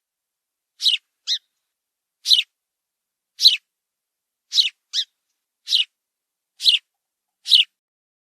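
White cockatoo giving short, shrill calls about once a second, twice doubled with a quick second note.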